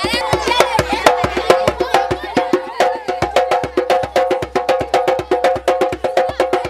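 Music driven by fast, even wooden percussion strikes, several a second, with pitched notes alternating in a short repeating pattern.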